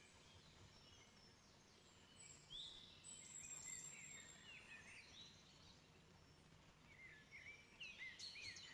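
Faint bird chirps over near-silent room tone: a few short chirps about two and a half seconds in, and a quicker run of them near the end.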